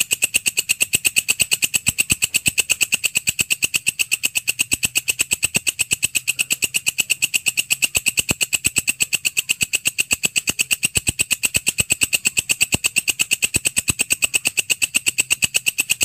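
Walang kecek (belalang kerik), a singing grasshopper, stridulating: a steady, rapid train of even, sharp, high-pitched clicking pulses, about eight a second.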